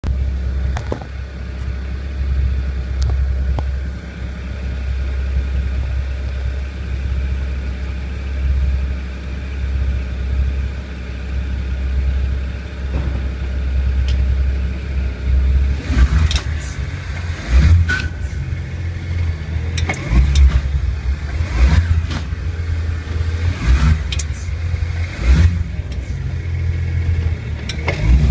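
Low steady drone and rumble from a moving BMW 1 Series, which the owner suspects is a bad wheel bearing. From about halfway on, irregular thumps come through over the drone.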